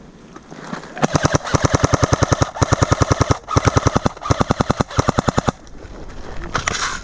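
Airsoft electric gun firing on full auto at about eleven shots a second, in four bursts starting about a second in, with a steady whine under the shots. The firing breaks off a little past halfway, and a few more shots come near the end.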